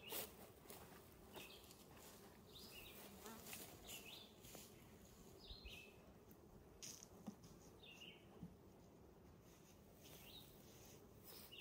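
Faint steady buzzing of honeybees flying around an open hive, with a few light knocks from wooden hive boxes being handled. A bird chirps briefly several times.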